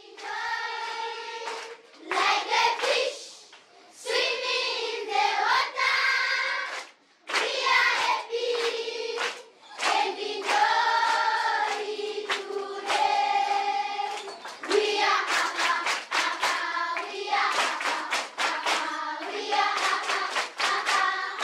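A class of schoolchildren singing a song together in chorus, phrase after phrase with short breaks, clapping their hands along. The clapping comes through more plainly in the second half.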